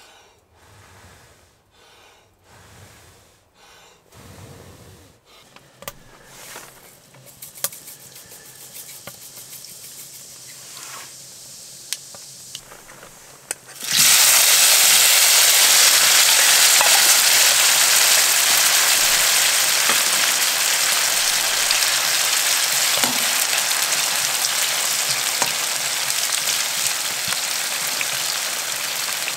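Chopped vegetables tipped into hot oil in a frying pan on a wood stove, bursting into a loud, steady sizzle about halfway through, then frying as they are stirred with a spoon. Before that, only soft breathy puffs about once a second and faint ticks from the heating pan.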